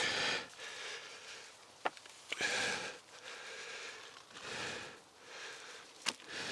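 A man sniffling three times through a nose blocked by a lingering cold, each sniff a short hiss, with a couple of small sharp clicks between them.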